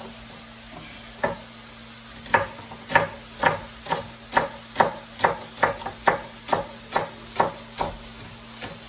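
Chef's knife chopping green onions on a wooden cutting board: one chop about a second in, then a steady run of knife strikes on the board, about two a second, from about two and a half seconds in.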